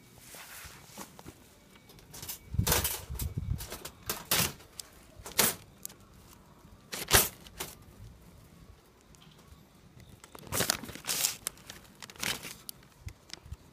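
Newspaper crinkling and rustling in scattered bursts on a wire-mesh cage trap, the loudest burst about seven seconds in.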